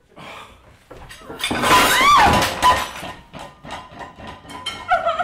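Plates, glasses and cutlery crashing and clattering as they are swept across and off a breakfast table, with a brief high cry at the loudest moment and a run of clinks and knocks after it.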